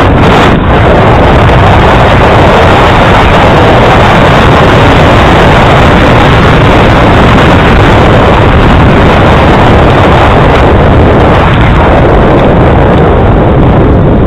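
Loud, steady wind rush buffeting the microphone of a camera on a moving bicycle.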